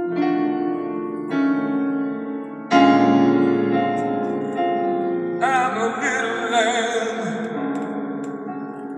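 Male jazz singer-pianist playing slow, sustained piano chords, a new chord about every second. About halfway through, he begins singing a long note with a wide vibrato over the piano.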